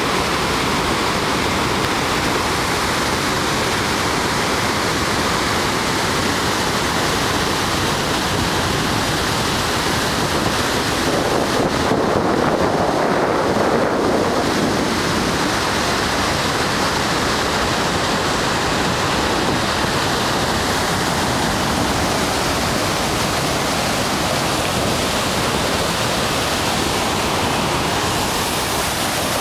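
Niagara Falls pouring onto the rocks below: a loud, steady rush of falling water. About eleven seconds in, the sound briefly thickens for a few seconds, like wind buffeting the microphone.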